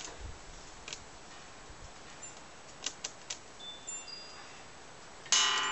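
Hanging metal sign and its chains being shifted by hand: a few light clinks of chain and metal, then about five seconds in a loud metallic clang that rings on with several tones and slowly fades.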